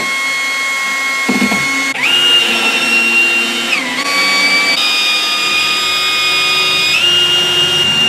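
Cordless drill running as its bit drives down into foam board. The motor's steady whine steps up and down in pitch several times.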